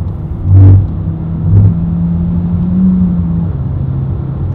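Car cabin noise at highway speed: a steady low rumble of road and engine, with two short thumps about a second apart near the start.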